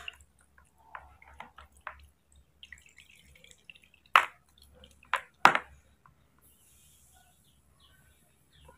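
Ice water dripping off a wet cloth wrapped around ice cubes into a basin: a few light drips, then three louder splashes about four seconds in and twice more a second later.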